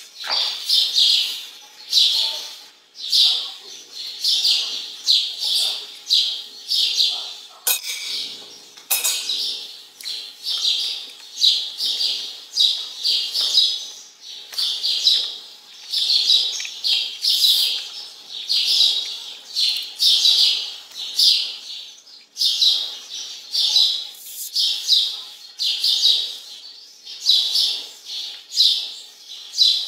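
A bird chirping in short, high calls repeated about twice a second without a break.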